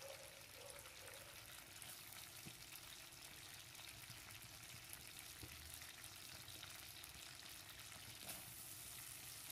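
Faint sizzle of hot leftover oil in a stainless steel wok as chopped vegetables go in, a soft crackle with fine ticks.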